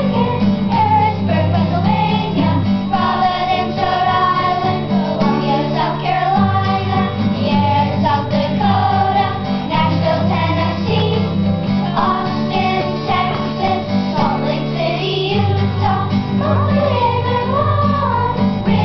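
A children's choir singing in unison through a song listing U.S. states and their capitals, with an acoustic guitar strumming chords underneath.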